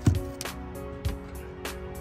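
Background music with a steady drum beat (low kick thumps and sharp snare or hi-hat hits) over sustained chords.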